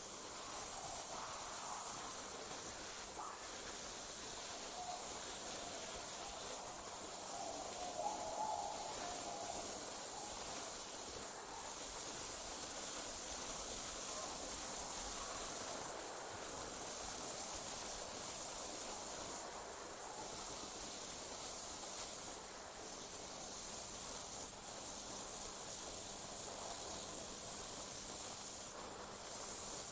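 Night insects, crickets, trilling in a continuous high-pitched chorus that drops out briefly every few seconds.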